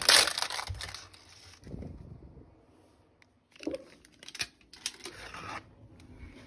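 Foil-lined plastic snack packet being torn open and crinkled by hand: a loud crackle at the start that dies down, then more bursts of crinkling and rustling a little past halfway.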